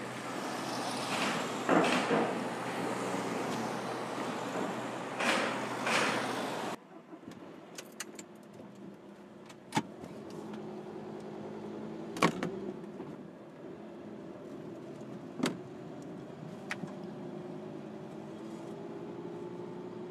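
Cars rolling off a ferry's vehicle ramp, with outdoor road noise and several heavy thumps. About seven seconds in, it cuts to the inside of a car: a steady low engine hum with a few sharp clicks, the engine pitch rising slowly near the end as the car pulls away.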